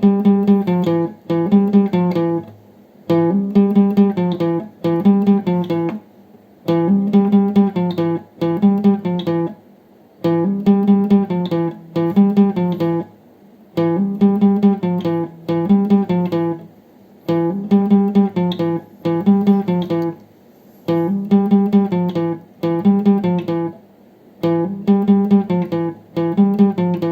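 Background music: an acoustic guitar strumming a repeating chord pattern in short paired phrases with brief pauses between them.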